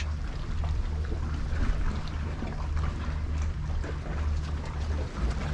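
Wind buffeting the microphone as a steady low rumble, over a faint wash of sea against the rocks.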